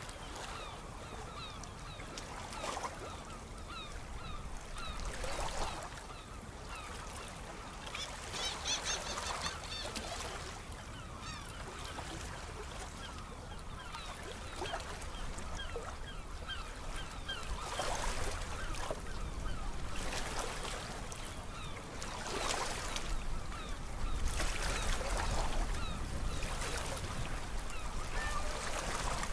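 Sea waves washing in and breaking every few seconds, growing stronger in the second half, with birds calling over them.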